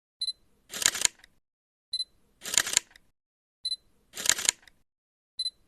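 A short, high ringing click followed about half a second later by a brief burst of noise, the pair repeating evenly about every 1.7 seconds, in the manner of a camera shutter sound.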